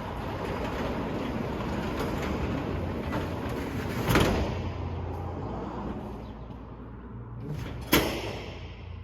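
A door being worked: a steady rumbling noise, then two loud bangs about four and eight seconds in.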